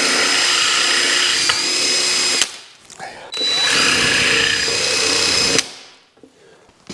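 Electric drill drilling out the rivet in an e-bike kickstand's pivot, in two runs of about two and a half seconds each with a short pause between. Each run opens with the motor whine rising as it spins up, then holds steady while the bit cuts.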